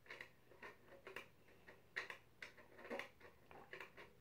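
Faint, irregular ticking clicks, about three or four a second, from a round metal-rimmed wall clock being handled as its hands are set.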